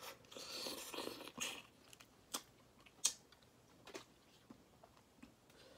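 Close eating sounds from a person biting and sucking on a shell-on crayfish. A wet sucking noise lasting about a second comes near the start, followed by a few sharp clicks as the mouth works the shell.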